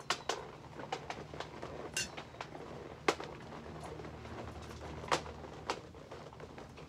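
Latex balloons being handled and fastened onto a garland frame: scattered light clicks and knocks, the loudest about three seconds in, with a short rubbery squeak about two seconds in.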